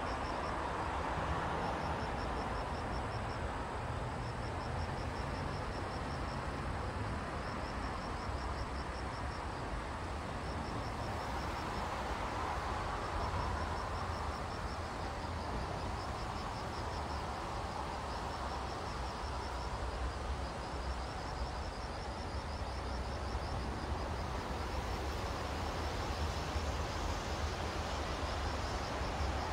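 An insect chirps in repeated high-pitched trills, each about a second long with short gaps between them, over a steady background rumble. The low rumble swells near the end.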